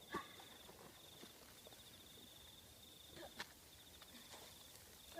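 Faint, high-pitched insect trill pulsing in long stretches, broken by a few short scuffs and knocks of someone climbing over rock, two of them sharper, just after the start and about three and a half seconds in.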